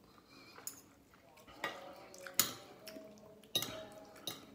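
Metal spoon and fork clinking and scraping against a ceramic plate while food is cut and scooped, about five sharp clinks, the loudest near the middle.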